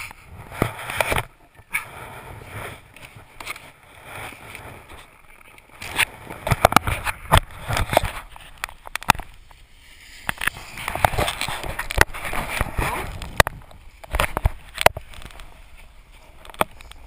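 An action camera being handled, with rustling, bumps and sharp knocks against the housing and glove or jacket, over crunching and scraping snow.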